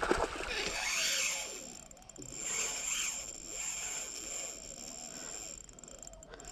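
Spinning reel ratcheting under load while a hooked jack crevalle pulls against it: a raspy drag-and-gear clicking that comes in two spells, each about a second long, then fainter. A splash at the surface comes right at the start.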